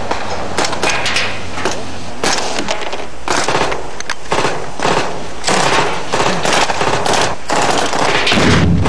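Machine-gun and rifle fire during a simulated battle: shots come irregularly and in quick runs of about three a second. A low rumble comes in near the end.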